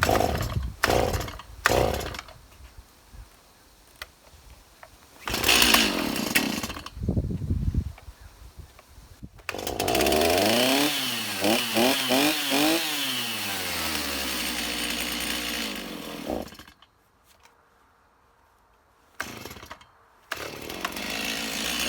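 Stihl MS290 Farm Boss two-stroke chainsaw being cold-started on the pull cord: a few short sputters, then it catches and runs with the revs rising and falling, dies about sixteen seconds in, and starts running again near the end after another pull. A cold engine that is hard to start.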